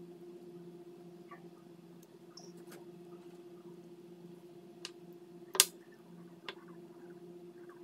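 Quiet hand-handling sounds of a lumpia wrapper being rolled and a small bowl being moved: a few soft clicks and taps, with one sharper click a little past halfway. A steady low electrical hum runs underneath.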